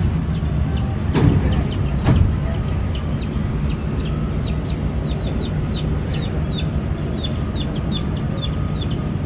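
Concarril NS-88 metro train braking into a station, heard from inside the car: a steady low rumble of the running gear, two loud clunks about one and two seconds in, and a run of short high squeaks that come faster as the train slows to a stop.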